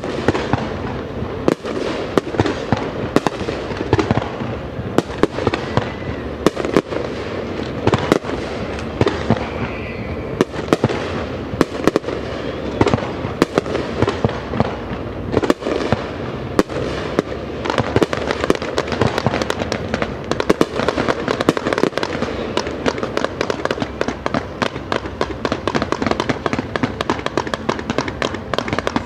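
Fireworks display going off in a continuous barrage of bangs. The bangs come faster and more densely packed over the second half.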